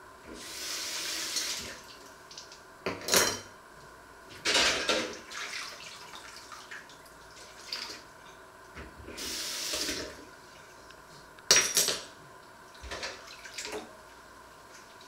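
Washing up by hand at a stainless-steel sink: the tap runs in two short spells, and metal pots and cutlery clatter and clink against each other and the sink, the loudest knocks about three, four and a half and eleven and a half seconds in.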